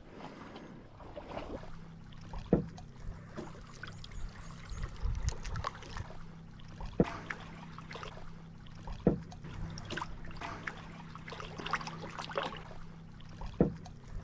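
A canoe being paddled: water trickling and dripping off the paddle, with four sharp knocks spaced a few seconds apart.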